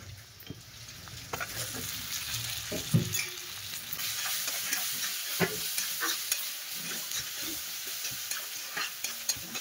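Onions and masala frying and sizzling in a heavy black wok, the sizzle growing louder over the first few seconds. A steel spatula scrapes and knocks against the pan again and again as it stirs, with one sharp clank about three seconds in.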